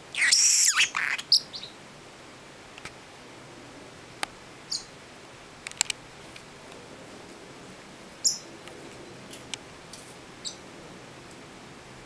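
Pacific parrotlet calling: a loud burst of high, wavering calls lasting about a second at the start, then a few short, high chirps spread out through the rest, with a few faint clicks.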